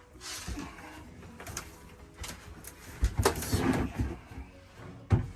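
Pine window screen frame being worked into a window opening: sliding and scraping of wood with scattered clicks, a cluster of loud knocks about three seconds in, and a sharp thump near the end.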